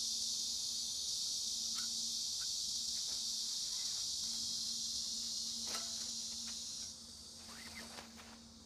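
A steady, high-pitched chorus of insects, cricket-like, which cuts off suddenly about seven seconds in, with a few faint clicks and a low steady hum beneath it.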